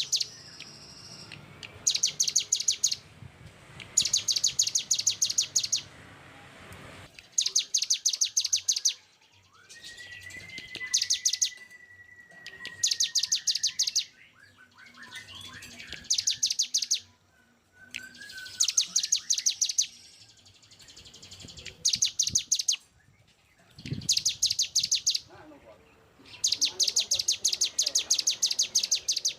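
Songbird singing 'tembakan' phrases: bursts of rapid, evenly repeated rough notes, each about a second long, roughly one every two seconds. A long steady whistle sounds about a third of the way in.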